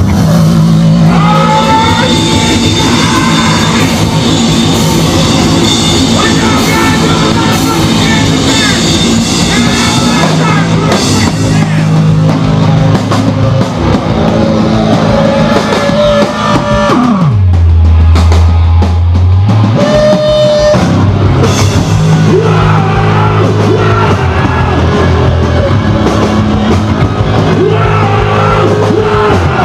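Hardcore punk band playing live: distorted guitars, bass and a pounding drum kit, with screamed vocals. About two-thirds of the way through, the band drops to a single held low bass note for about two seconds before the full band comes back in.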